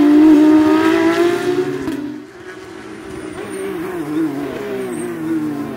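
Race car engine at high revs, its note rising slightly. About two seconds in it falls away much quieter, then runs on with the pitch climbing and dipping.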